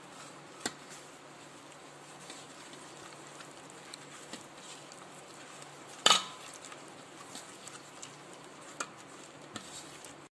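A hand mixing a wet spice-and-flour marinade paste in a bowl, quietly. A few sharp knocks against the bowl come through, the loudest about six seconds in.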